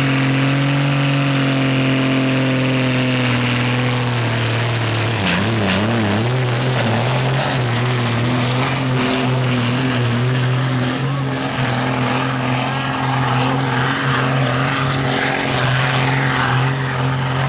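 A John Deere farm tractor's diesel engine running flat out under heavy load as it drags a pulling sled, belching black smoke. The steady engine note wavers and dips about five seconds in, then holds again. A thin high whistle climbs over the first few seconds.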